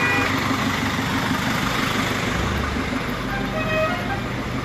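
Street traffic noise with a vehicle engine running close by, a steady low throb under the general hubbub.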